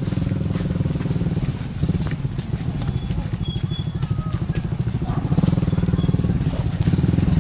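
Small motorcycle engine running with rapid even firing pulses, its note shifting a couple of times and growing louder from about five seconds in.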